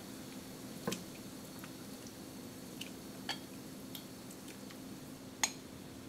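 Water simmering in a pan: faint bubbling with a few small scattered pops and ticks, over a low steady hum.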